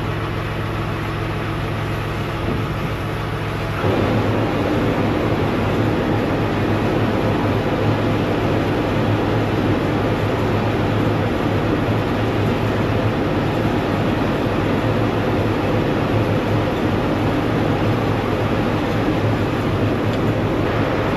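Steady engine running with a low hum, growing louder and rougher about four seconds in and holding steady after that.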